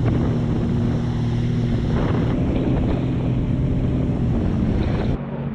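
Sea-Doo FishPro jet ski under way at steady speed: a steady engine hum under heavy wind buffeting on the microphone and water noise. Near the end the wind and water hiss cut off suddenly, leaving the engine hum.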